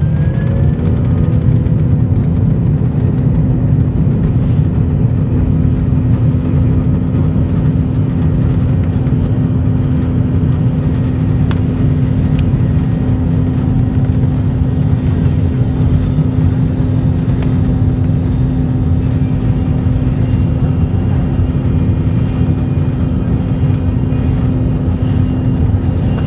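Jet airliner engines running steadily, heard from inside the cabin as a loud, even low rumble while the plane rolls slowly along the runway. A steady hum joins about half a second in.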